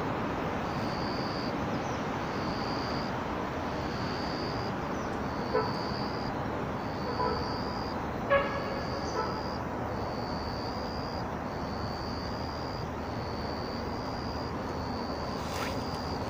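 Steady outdoor background noise with a high, clean tone chirping in even pulses a little over once a second. A brief call-like sound comes about eight seconds in.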